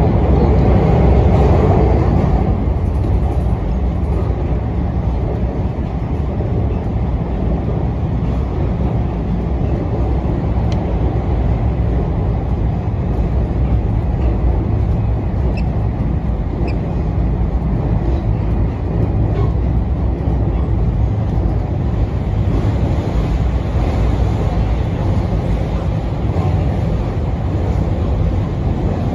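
Marine Liner electric train running at speed, a steady low rumble of wheels on rail heard inside the carriage. It is louder for the first couple of seconds while another train passes close alongside.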